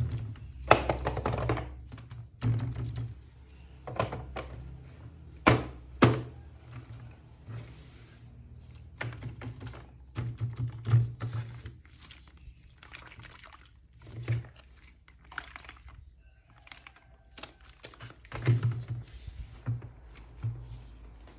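Plastic toy packaging and action figures being handled during unboxing: irregular clicks, taps and knocks with rustling between them, the sharpest knocks about 5 and 6 seconds in and a busier cluster near the end.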